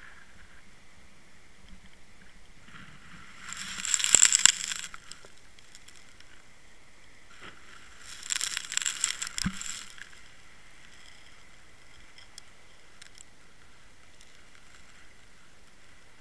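Underwater camera housing scraping and grinding against a sandy, shell-strewn seabed as it is rolled over: two bursts of gritty crackling, about three and a half seconds in and again about eight seconds in, over a faint steady hiss.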